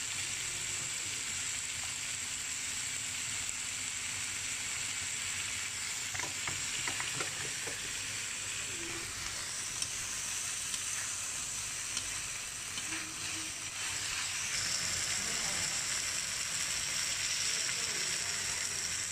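Sliced onions, tomatoes and chillies sizzling as they fry in a metal wok, a steady hiss. A metal spatula stirs them now and then, with a few light scrapes against the pan.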